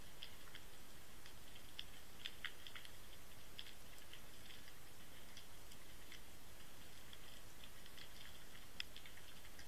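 Underwater recording through a Water Wolf inline camera lying on the seabed: a steady hiss with scattered faint clicks and ticks, a small cluster about two and a half seconds in and a sharper click near the end.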